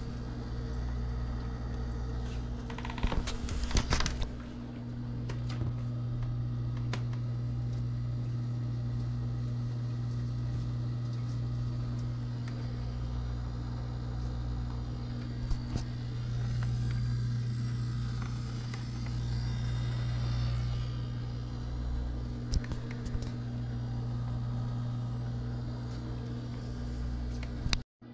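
A steady low machine hum throughout, with a cluster of short knocks and rustles about three to four seconds in and a few scattered clicks later.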